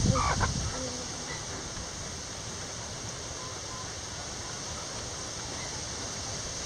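A chicken clucks and squawks at the very start, with a quick rising cry. Then there is a steady, even hiss of background noise with a few faint distant chirps.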